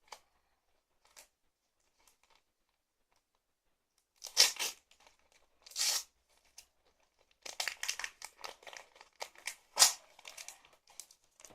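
A booster pack of football cards or stickers being torn open and its wrapper crinkled. Two short rips come about four and six seconds in, then a longer stretch of crinkling with one loud rip near the end.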